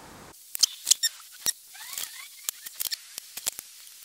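Sharp clicks and taps of small metal measuring tools being handled and set down on a wooden workbench while marking out a sheet of brass. A few short, scratchy squeaks of a pencil drawing lines come about two seconds in.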